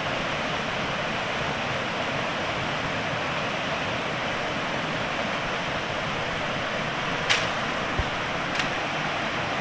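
Rushing water of a small river pouring over rocks in a white-water cascade, a steady full rush. Two short sharp clicks and a dull knock sound near the end.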